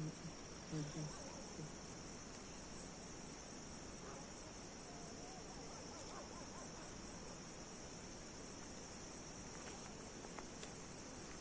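Crickets chirping in a steady, high-pitched chorus, with a few short low sounds in the first second or two.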